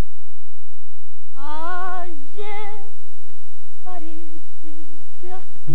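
A woman singing a tango in short phrases with a strong vibrato, starting about a second and a half in, over the hiss of an old film soundtrack.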